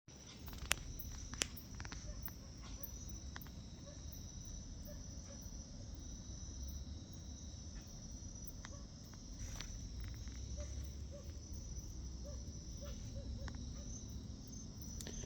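Crickets and other night insects calling in a steady, shrill chorus, with a low rumble underneath and a few sharp clicks, the loudest two within the first second and a half.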